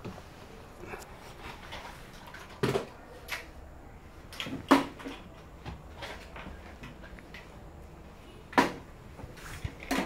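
A handful of short knocks and clunks, about five spread over ten seconds, the sharpest about halfway through, over a low room background.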